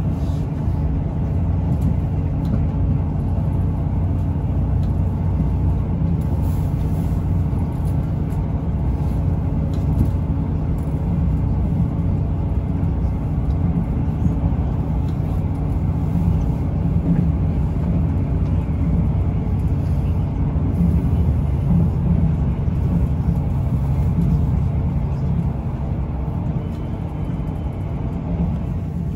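Steady, low running noise of a Class 158 diesel multiple unit, heard from inside the carriage as the train travels.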